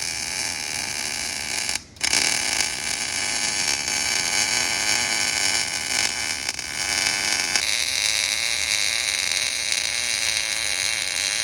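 Electric arc welding on structural steel: a steady loud crackle and hiss from the arc as a bead is run downhill. The arc breaks off for a moment about two seconds in and strikes again. About two-thirds of the way through it changes to a thinner, hissier sound.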